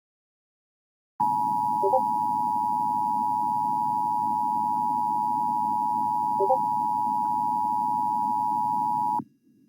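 Emergency Alert System two-tone attention signal, 853 and 960 Hz sounded together. It is a steady tone that starts about a second in and cuts off abruptly after about eight seconds, over a low hiss. It announces an emergency alert message.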